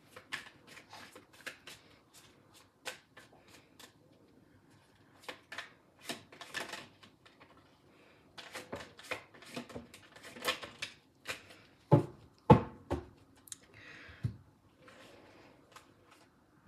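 A tarot deck shuffled by hand, overhand: a run of quick, sharp card clicks and flicks. Three or four louder thumps come about twelve seconds in.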